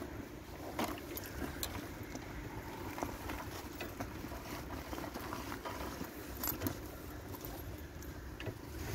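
Scattered light clicks and rattles from a parked bicycle and its basket load being handled, over a steady low hum.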